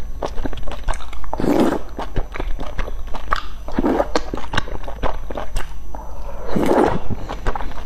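A person slurping wide starch noodles coated in sesame paste and chewing them, with many small wet mouth clicks; three louder slurps come about one and a half, four and seven seconds in.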